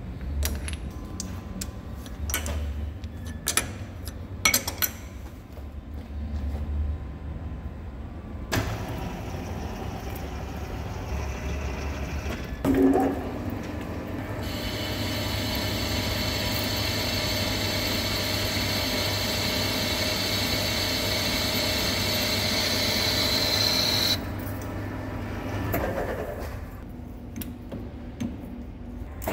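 Metal clicks and clunks as a tool is set in a lathe's quick-change toolpost. Then the Hafco centre lathe runs, and from about a third of the way in a carbide insert cuts the 38MnVS6 high-tensile steel piston blank with a steady, high-pitched cutting sound for about ten seconds. The cut stops suddenly, and a few more clicks follow.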